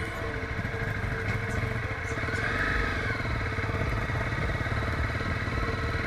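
A vehicle's engine and road noise, steady, heard while driving.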